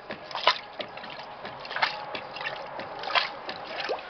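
Electrolux LTC07 top-load washing machine agitating a load of bedding on its quick programme: water sloshing and splashing in the tub, with a louder surge roughly every second and a half as the agitator swings back and forth.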